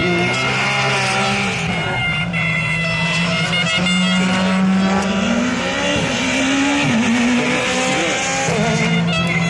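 Rally car engines racing past, revs rising and falling with gear changes, over background music.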